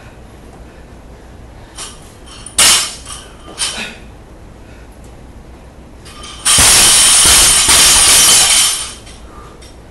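Loaded barbell with bumper plates during snatches: two short metal clanks, then the bar is dropped from overhead onto the lifting platform about six and a half seconds in, a very loud crash with the plates bouncing and rattling for about two seconds.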